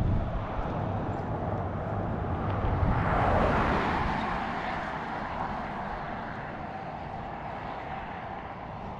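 A passing vehicle: a rush of noise that swells to its loudest about three seconds in and then slowly fades away.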